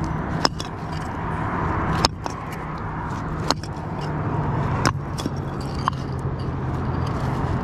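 A motor vehicle's engine running steadily with a low hum, a little louder from about halfway through. Five sharp clicks come about every second and a half as hardened black muck is broken off a recovered car part on the concrete.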